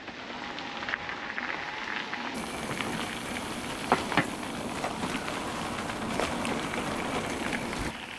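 Bicycle tyres rolling over a crunchy forest track: a steady crackle with scattered small clicks and two sharper ones about four seconds in.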